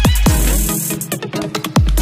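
Electronic dance music in a dubstep or drum-and-bass style, with fast heavy kick drums and deep bass; the kicks and bass drop out for about a second in the middle, then return.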